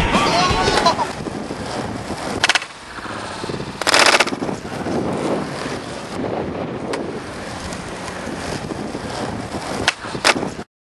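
Skateboard rolling on concrete, with sharp clacks of the board popping and landing several times, the last two close together near the end, and a louder half-second rush about four seconds in. Punk rock music fades out in the first second.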